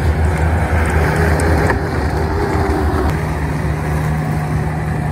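2005 Bobcat T190 compact track loader running steadily with its diesel engine under way as it works dirt and drives off; the engine note shifts slightly about three seconds in.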